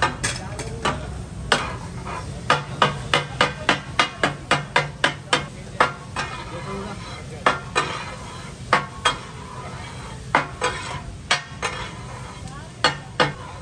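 Metal spatulas clanking against a large iron tawa in katakat chopping and turning, a quick run of about four strikes a second in the first half, then scattered strikes and pairs, over a faint sizzle of frying.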